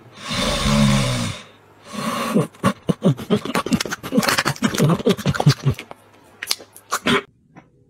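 A Shiba Inu snores once near the start. From about two seconds in comes a fast run of wet smacks and clicks as it licks and snaps at a piece of steak held to its nose, stopping abruptly near the end.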